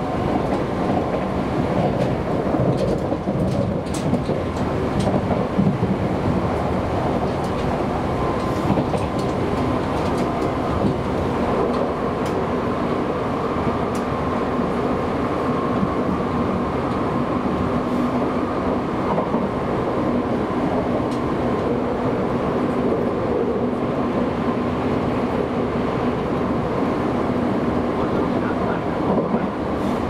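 Kintetsu Minami-Osaka Line train running, heard from inside the passenger car: a steady rumble of wheels on rail with a faint steady hum and a few light clicks.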